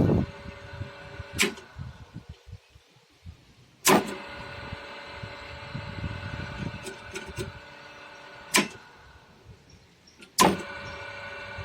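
PME-224 reversing magnetic starter's contactors clacking in and out four times as its buttons are pressed. A steady electrical hum runs while the starter is pulled in and drops away after it releases. The pull-in clacks are louder than the drop-out clacks.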